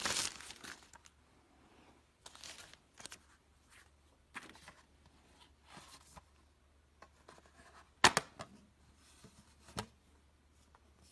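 Unpacking handling noises: a wrapping sheet rustles at the start, then a plastic folding tablet stand is handled and opened, with a sharp clack about eight seconds in and a lighter knock near ten seconds.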